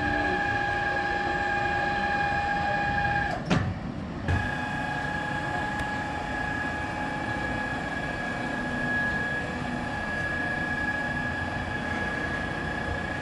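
Boat engine running at a steady speed, with a steady whine over water and wind noise; there is a brief break about four seconds in.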